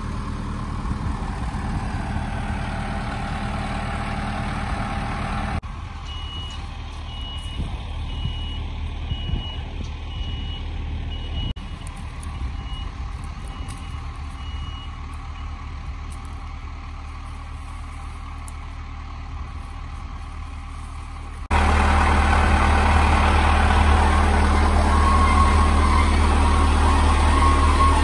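A back-up alarm beeping about once a second over a steady engine-like rumble. About three quarters of the way through it cuts to a louder steady machine hum, with a high whine near the end.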